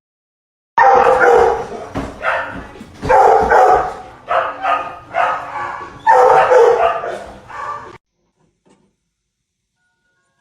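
A dog barking and vocalizing in a run of loud calls, some short and some drawn out to about a second, stopping abruptly about eight seconds in.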